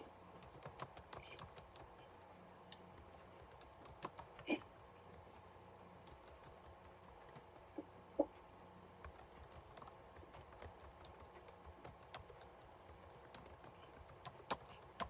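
Faint, irregular clicks and taps of typing on a computer keyboard, coming in scattered bursts over a faint steady hum.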